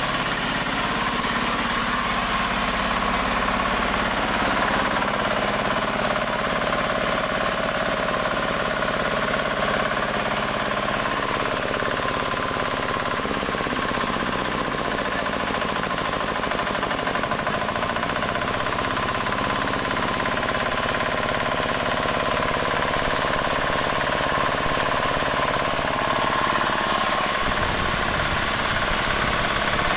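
An 18 hp diesel engine running steadily, driving a newly built sawmill under test.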